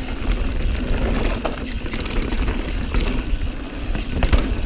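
Mountain bike descending a dusty dirt downhill trail: tyres running over the dirt and the bike rattling, with sharp knocks over bumps and wind rumbling on the microphone.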